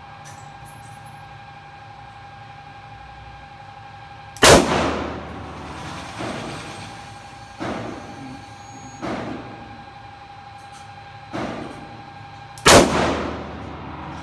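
Handgun shots echoing in an indoor range: two loud shots about eight seconds apart, with four quieter shots between them.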